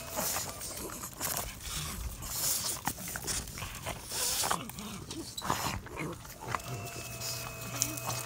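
French bulldogs breathing and snorting close to the microphone, in short noisy bursts.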